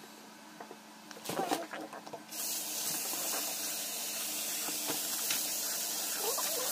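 A few light knocks, then a kitchen faucet comes on about two seconds in and runs steadily. The stream of water splashes onto raw chicken wings in a plastic colander as they are rinsed by hand in a stainless steel sink.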